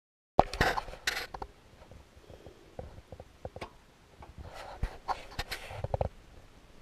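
Rustling and sharp knocks of hands handling things on a workbench, in two bursts: about half a second in and again around five seconds in, with scattered light ticks between.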